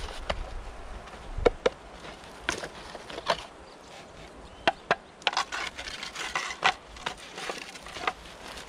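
Hollow clay bricks knocking together as they are lifted off a stack and carried: a series of sharp clacks, several close together in the middle, with footsteps on dry pine needles.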